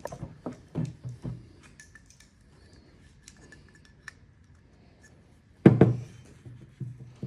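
Metal engine parts and tools clinking and knocking on a workbench. A few light knocks come in the first second and a half, then one loud clank just before six seconds.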